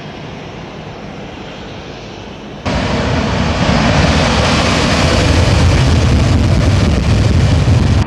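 Jet noise from a formation of Snowbirds CT-114 Tutor jets flying past as a moderate, steady rush. About two and a half seconds in it cuts abruptly to a much louder, deep, heavy jet noise from a two-seat F/A-18 Hornet accelerating down the runway on its takeoff run with afterburners lit.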